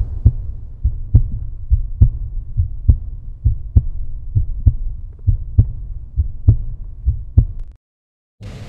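A slow, even pulse of low thumps, mostly in pairs of about one a second, over a low rumble. It cuts off suddenly shortly before the end.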